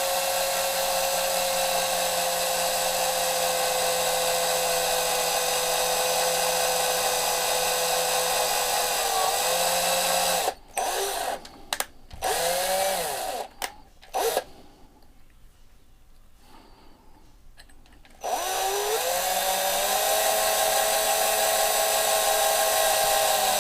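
Small electric drill boring into a die-cast model truck, its motor running at a steady pitch. About ten seconds in it stops and restarts in a few short bursts, goes quiet for about four seconds, then spins up and runs steadily again.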